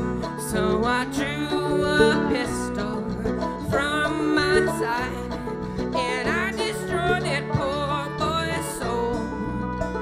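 Live acoustic string band playing an old folk song bluegrass-style, with quick plucked notes and a sliding note about six seconds in.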